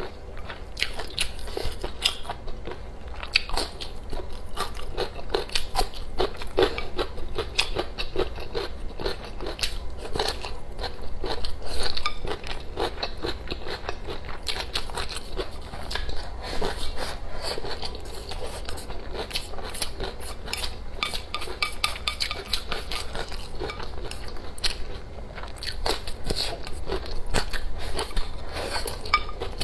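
Close-miked mukbang eating: biting, chewing and crunching food, with dense small clicks and the occasional clink of utensils on dishes.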